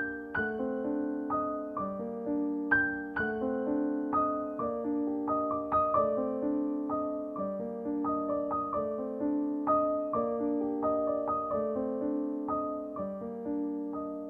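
Background piano music: a gentle, unhurried melody of single notes struck a few times a second, each fading after it is struck.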